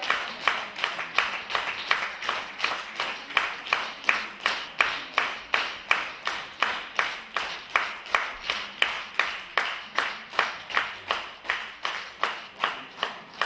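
Audience applause clapping in unison, a steady rhythmic beat of about three claps a second.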